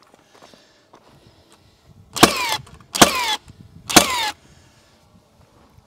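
Milwaukee nail gun firing three times, about a second apart, each shot a sharp bang followed by a brief whir.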